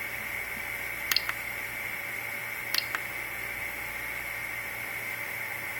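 Two pairs of short, sharp clicks from the rotary encoder knob and push-button on a 3D printer's LCD controller, about a second apart from each other, over a steady hiss with a high whine.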